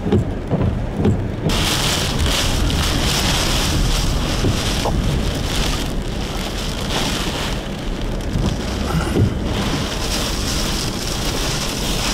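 Heavy wind-driven rain from a tornado's rear-flank downdraft pounding a vehicle on the highway: a dense, steady hiss that comes in suddenly about a second and a half in. Before it there is low wind rumble with a few knocks on the microphone.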